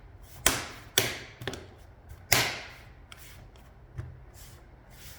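Plastic bottom cover of a Lenovo IdeaPad L340 laptop being pressed onto the chassis, its clips snapping into place: a run of sharp clicks, four in the first two and a half seconds with the loudest near the middle, then two fainter ones.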